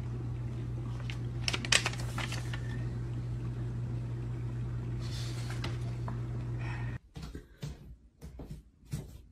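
A steady low hum with a few light clicks and rustles over it. It cuts off abruptly about seven seconds in, leaving only faint scattered clicks.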